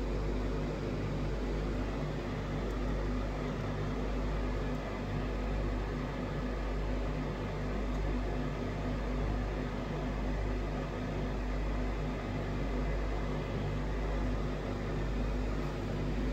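A steady low mechanical hum with a slight slow pulsing, unchanging throughout.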